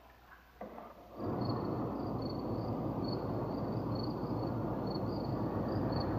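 Night outdoor ambience: a steady rushing background noise that comes in about a second in, with crickets chirping faintly in short repeated pulses.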